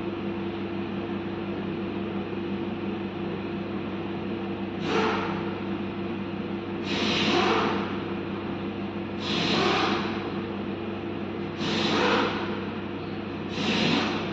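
Steady hum of a dust-extraction vacuum, with a rasping swish about every two seconds, five in all, from sandpaper strokes on hardened body filler.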